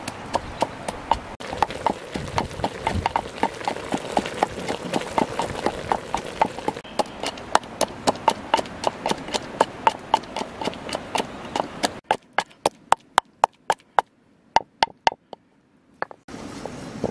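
Wooden pestle pounding in a wooden mortar, a steady run of hollow knocks about three a second, crushing red chilies into a paste.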